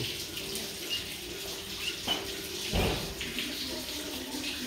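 Chicks peeping now and then in short high chirps over a steady hissing background, with one soft low thump about three seconds in.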